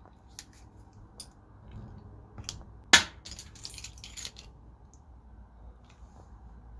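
Objects being handled: a few small clicks, one sharp click about three seconds in, then about a second of crinkling and clattering.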